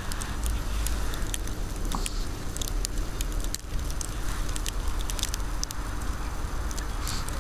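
Fresh wet snow crunching and crackling in many small clicks as a Pomeranian on a leash noses into it and bites at it, over a steady low rumble.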